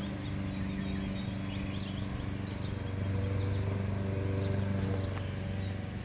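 A steady low mechanical hum, a little louder in the middle, with birds chirping faintly.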